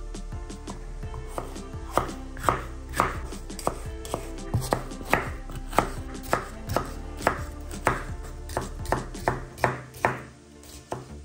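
Kitchen knife chopping a green bell pepper on a wooden cutting board: even strokes about two a second, starting about two seconds in.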